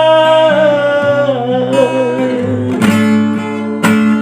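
Slow-rock song: a singer holds the last note of a line over acoustic guitar, the note wavering as it fades out about a second and a half in. The acoustic guitar then strums on alone between vocal lines.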